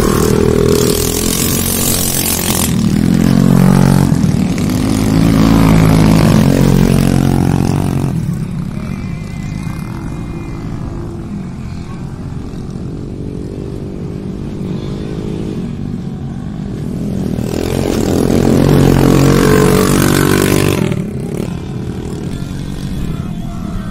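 Dirt-track racing motorcycle engines revving hard as bikes pass, loud through the first several seconds and again for a few seconds in the second half, with fainter engine sound between.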